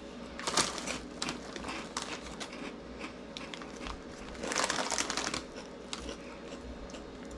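Crinkling of a plastic Cheetos snack bag being handled, with a louder rustle about half a second in and a longer one about four and a half seconds in.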